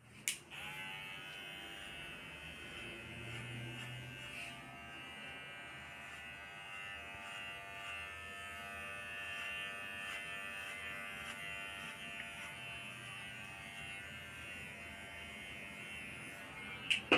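Cordless electric hair clipper cutting short hair on the back and side of a client's head. It starts with a click, then buzzes steadily. A few sharp clicks come near the end.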